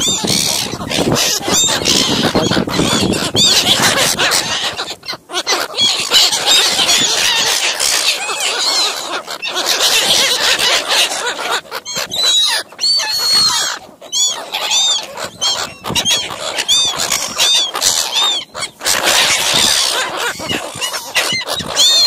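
A flock of silver gulls calling close to the microphone: many short, high, harsh squawks overlapping, coming in quick runs and busiest in the second half.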